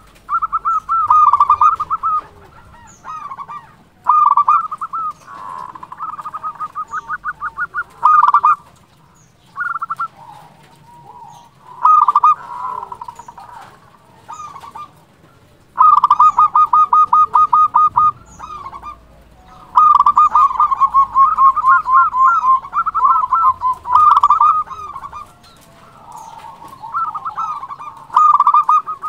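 Local zebra dove (perkutut) cooing: repeated phrases of fast, rolling staccato notes that end in a longer coo, with short pauses between phrases and a quieter stretch in the middle.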